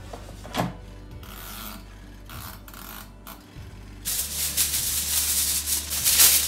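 Plastic bag being handled and crinkled, a loud, rustling crackle that starts about four seconds in. Before it there is a single sharp knock and a few faint scrapes.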